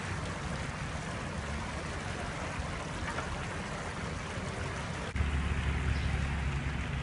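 Water from a leaking drinking-water main running across the street and pouring into a storm drain, a steady rushing wash. A low rumble underneath gets louder about five seconds in.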